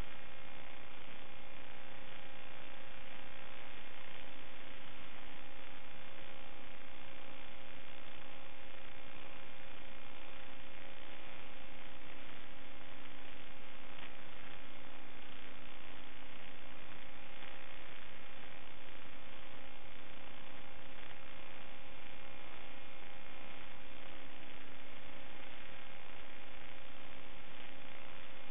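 Steady electrical hum and hiss on the audio channel of an analog FPV video link and DVR that carries no microphone sound. A few fixed tones sit over an even hiss and stay unchanged throughout, not following the quadcopter's throttle.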